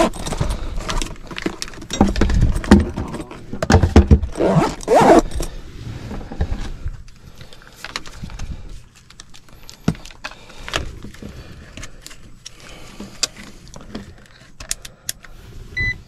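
Tools and a clamp meter being handled: rustling, clattering and jangling metal clicks, dense for the first several seconds, then sparse clicks. A short electronic beep from the meter comes just before the end.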